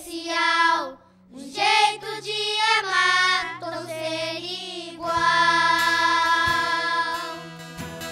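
Young boys singing a song together into microphones over a soft instrumental backing, with a short pause about a second in and a long held note about five seconds in.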